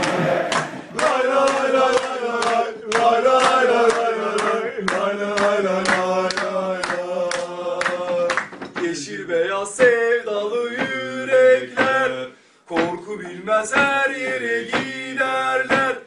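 Male voices singing a Bursaspor football terrace chant together, held notes over a steady beat of sharp hits. The singing breaks off briefly about twelve seconds in, then picks up again.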